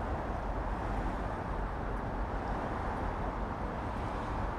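Steady low rumble of urban road traffic, an even noise with no distinct events.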